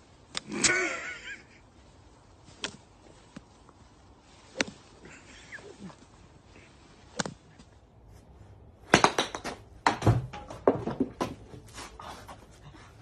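Golf club striking into bunker sand, a sharp knock about every two seconds, with a short cry just after the first strike. Near the end a quick run of loud knocks and thuds.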